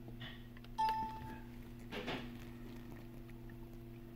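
A single short electronic beep, one clear tone lasting about half a second, about a second in, over a steady low hum.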